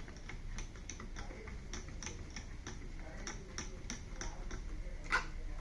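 A run of light, irregular clicks, about three or four a second, with one sharper, louder click about five seconds in, over a steady low hum.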